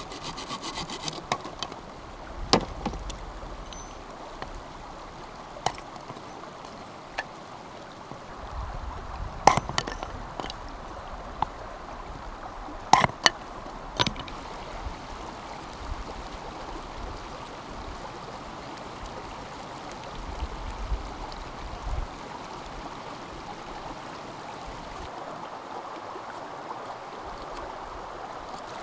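A stream running with a steady rush, with scattered sharp knocks and clicks over it, the loudest about ten and thirteen seconds in, and a quick run of ticks in the first second.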